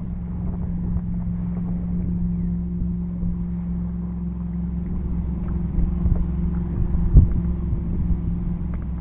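Small fishing boat's motor running steadily with a low, even hum as the boat moves slowly across the lake, with a single knock about seven seconds in.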